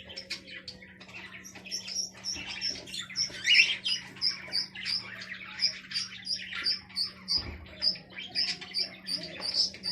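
Small cage birds chirping: quick, high chirps repeated about two or three times a second, with one louder rising call about halfway through.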